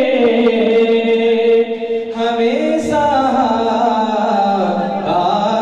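A man singing a naat, an Urdu devotional hymn, unaccompanied into a microphone, holding long, slowly gliding notes with a brief breath about two seconds in.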